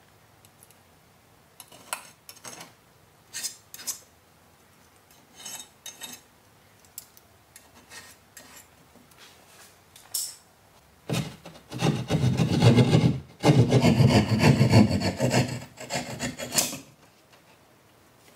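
Keyhole saw cutting through drywall, sawing steadily for about six seconds with a brief pause partway, the loudest sound here. Before it comes a scatter of short scratches and taps as the box outline is marked on the wall with a pen.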